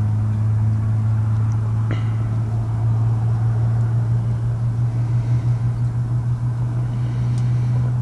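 A steady low hum, like a motor or engine running, with a faint click about two seconds in.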